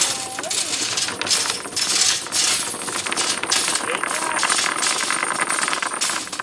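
Metal chain of a hand-hauled chain ferry clinking and rattling as it is pulled along, a dense run of metallic clicks that stops suddenly at the end.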